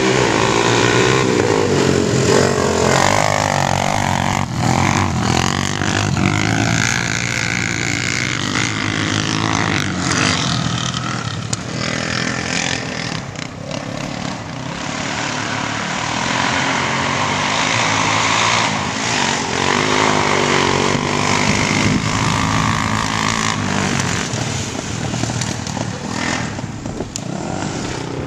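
Several ATV engines racing together, revving up and down as the quads accelerate and slow around the track.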